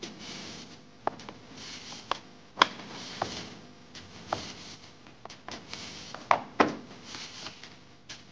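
Hands handling a cardboard skincare box and a paper sachet of acne patches: rustling and crinkling with irregular sharp taps and clicks, the loudest about two and a half seconds in and again twice a little after six seconds.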